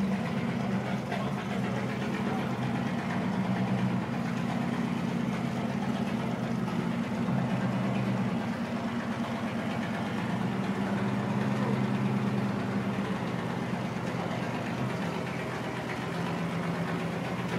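Engine of a 1957 Mack B-model tiller ladder fire truck running at low revs as the truck moves slowly, a steady low drone.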